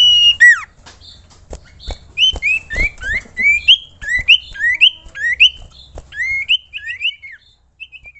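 Sirtu (cipoh, common iora) singing. A long steady whistle ends just after the start and is followed by a sharp falling note. Then a run of quick rising whistled notes comes about two a second, with a few short notes near the end.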